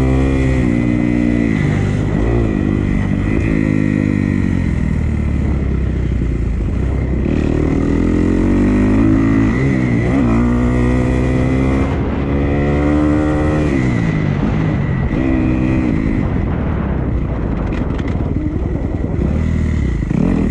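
Dirt bike engine under throttle, its pitch climbing and dropping back again and again as the rider accelerates and backs off, with a steady high whine underneath.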